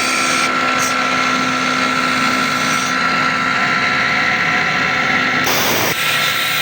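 7.5 kW rotary air compressor running steadily under test with a loud, even machine hum. There is a short burst of hiss about five and a half seconds in.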